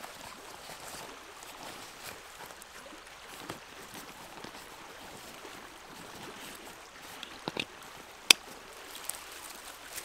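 Nylon backpack pouch being handled: fabric rustling and a few sharp plastic buckle clicks, the loudest about eight seconds in, over the steady rush of a river.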